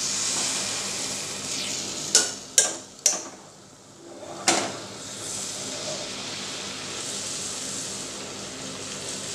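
Coconut oil sizzling steadily in an aluminium kadai as an achappam (rose cookie) deep-fries. About two to four and a half seconds in there are four sharp metal clinks.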